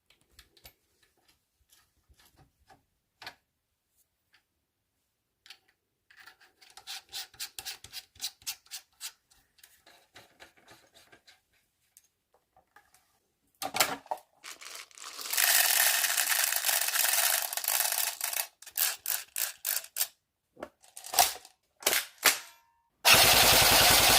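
Airsoft M16A1 replica rifle being handled: scattered light clicks, then a run of quick plastic-and-metal clicks and rattles as the tracer unit is fitted. This is followed by loud sustained bursts of electric-gearbox full-auto fire, a few seconds long, with sharp clicks between them and a last loud burst near the end.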